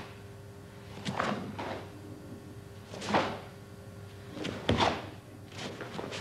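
Karate gi snapping and swishing with each block and strike of a kata, a sharp swish every second or so, over a faint steady hum.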